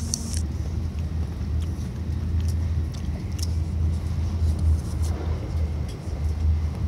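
Shinkansen bullet train running at speed, heard from inside the passenger cabin: a steady low rumble, with a few faint clicks.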